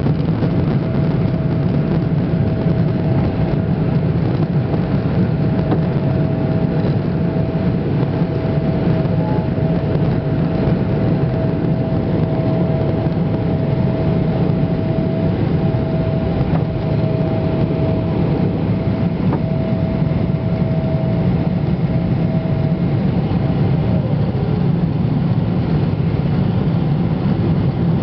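Boeing 777-200ER's GE90 jet engines during takeoff: a loud, steady, deep rumbling noise with a thin held whine that slides down in pitch near the end.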